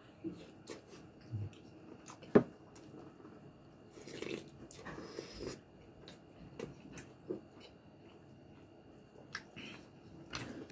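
Close-miked eating sounds: chewing and mouth smacking on a mouthful of braised pork with skin, with scattered sharp clicks, the loudest a little over two seconds in, and a breathy stretch around four to five seconds in.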